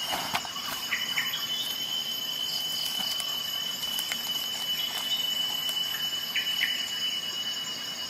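A folding multi-tool pushed into a nylon belt sheath and the sheaths handled: a couple of sharp clicks at the start, then light handling noise, over a steady high-pitched whine.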